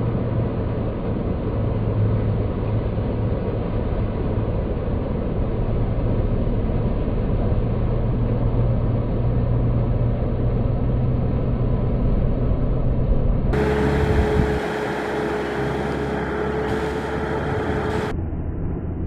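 Tractor engine running steadily under load. About two-thirds of the way through, the sound cuts abruptly to a different engine with a steady higher hum, and it cuts again near the end.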